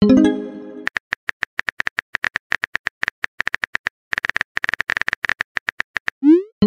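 Phone keyboard tap sounds in a quick, uneven run of clicks as a text message is typed. The run opens with a short pitched message-sent chime that fades over about a second. Near the end comes a rising swoosh, and then another chime starts as the typed message is sent.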